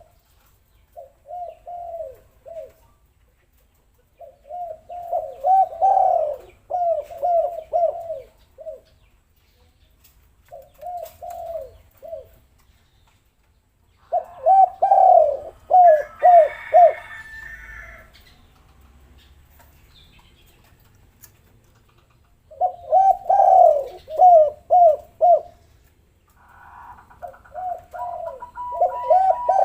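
Spotted dove (tekukur) cooing: repeated bouts of quick, low coos, each bout a second or two long with short pauses between. This is a lure call meant to set other doves calling. Fainter higher chirps from another bird come in around the middle and near the end.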